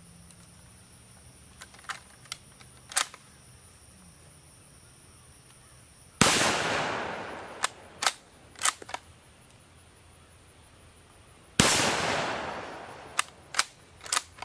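A Carcano M41 bolt-action rifle in 6.5×52mm. First come a few sharp metallic clicks as an en-bloc clip is loaded and the bolt closed. Then two shots about five and a half seconds apart, each with a long echoing decay and followed by the clicks of the bolt being worked.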